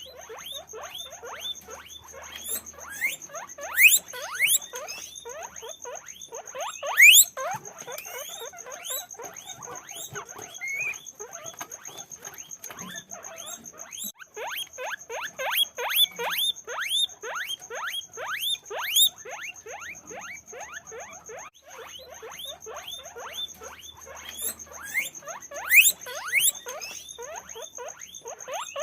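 A group of guinea pigs squeaking without pause, a dense stream of short chirps with several louder, rising whistling wheeks.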